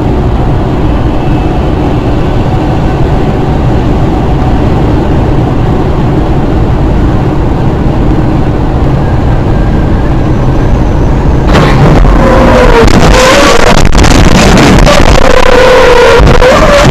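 A road vehicle driving, with steady, loud engine and road rumble; about eleven seconds in the noise turns louder and harsher, with wavering tones over it.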